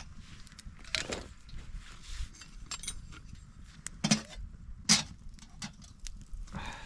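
A few separate knocks and clinks of camp cooking gear being handled, over a low steady rumble.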